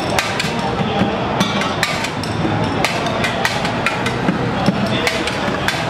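Improvised drum kit of plastic buckets, tubs and containers played with sticks: a quick, uneven rhythm of sharp hollow taps and knocks, several a second, over steady background noise.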